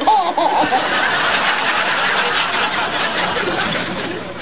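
People snickering and chuckling, with a short voice in the first second.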